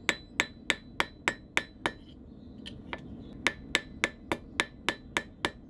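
A blacksmith's rounding hammer strikes a red-hot bar on an anvil in a steady rhythm, about three blows a second, each with a short metallic ring. The blows thin out briefly about two seconds in, then pick up the same pace again.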